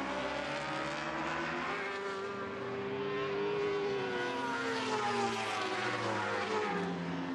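Several racing superbikes at full race pace, their high-revving engines overlapping and rising and falling in pitch as the riders change gear and brake into and accelerate out of corners.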